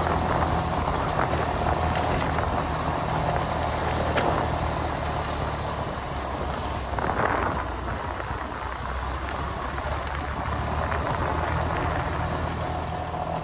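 A vehicle on the move, heard from on board: its engine running at a steady pitch under road and wind noise, with a brief louder rush about seven seconds in.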